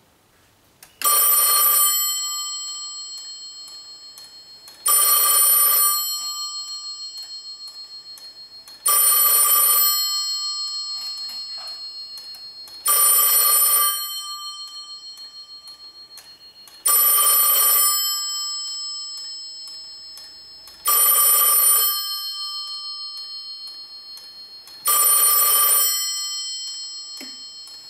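Electromechanical telephone bell ringer ringing in seven short rings, one about every four seconds. Each ring is about a second of clapper strikes on the gong, then a fading ring-out.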